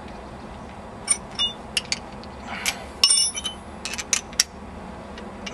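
Small steel parts clinking and tapping: the straightened steel washer and its fastener being fitted back onto the golf ball cannon's piston bolt by hand. It is a scattered series of sharp metallic clicks, a few with a brief ringing, busiest about three to four and a half seconds in.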